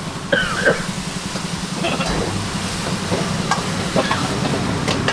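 Metal ladle stirring and scraping in a wok of curry-powder sauce over a gas burner, with scattered clinks of the ladle on the wok and light sizzling over a steady burner hum.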